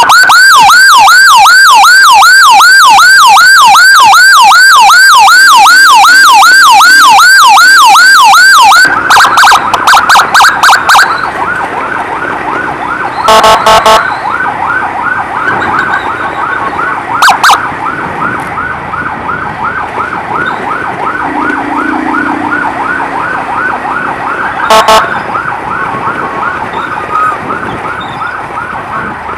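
Emergency siren on a fast yelp, about three or four sweeps a second, very loud for the first nine seconds and then fainter as it carries on. The fainter yelp is broken by a quick run of short, loud horn-like blasts about nine seconds in, and by single short blasts around thirteen, seventeen and twenty-five seconds.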